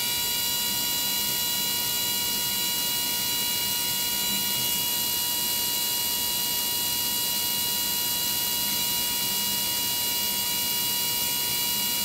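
Milling machine spindle running at a steady speed with a high, even whine while a No. 39 twist drill is fed into aluminium bar to drill a tapping hole for an M3 thread.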